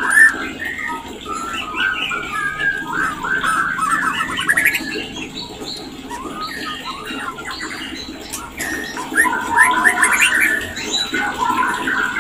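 White-rumped shama (murai batu) singing an unbroken run of varied chattering phrases and quick trills.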